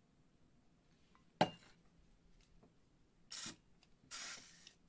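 A sharp metal click about a second and a half in, then two short hisses of WD-40 aerosol spray, the second one longer.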